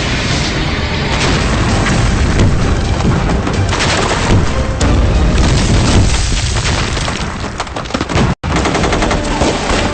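Battle sound effects for a war drama: rapid gunfire and explosion booms over background music. The sound cuts out completely for an instant about eight and a half seconds in.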